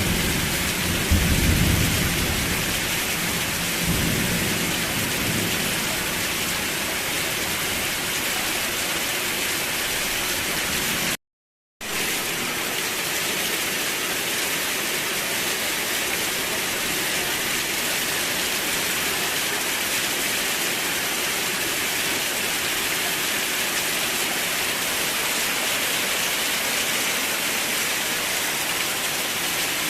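Steady rain with a low thunder rumble in the first few seconds that fades away. About a third of the way through the sound cuts out completely for half a second, then the rain carries on evenly.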